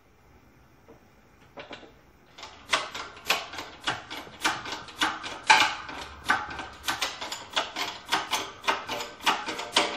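Steel exhaust tubing being forced over a pipe expander in a hydraulic shop press: a rapid run of sharp metallic cracks and pings, about three or four a second, starting a couple of seconds in.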